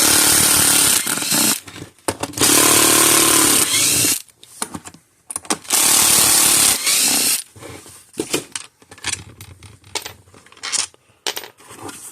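Electric drill-driver running in three bursts of about a second and a half each, backing the screws out of an electric fence charger's case. Scattered light clicks and knocks follow.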